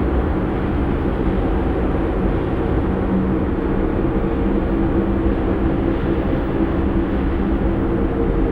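Dark ambient drone music: a steady, dense low rumble with several sustained low tones held underneath, no beat or melody.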